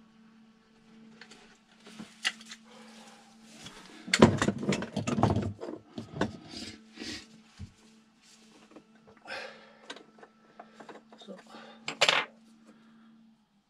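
Hand tools clattering and knocking on a boat's fibreglass bilge as they are handled and set down. The loudest clatter comes about four seconds in, and a sharp knock comes near the end.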